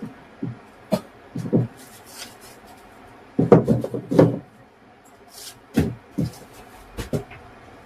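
Irregular wooden knocks and bumps with a few brief rubbing strokes, from hand work on a wooden dinghy's coaming as it is cleaned off before painting. The loudest cluster of knocks comes a little after the middle.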